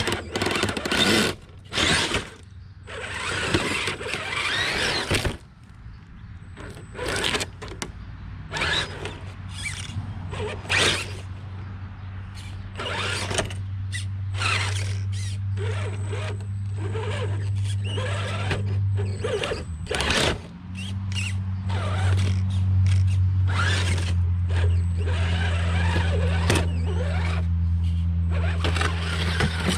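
Redcat Gen8 scale RC rock crawler's electric drivetrain whirring as it creeps over rocks, with many sharp clicks and scrapes of tyres and chassis on stone. A steady low hum comes in about a quarter of the way through, breaks off briefly past the middle, then returns louder.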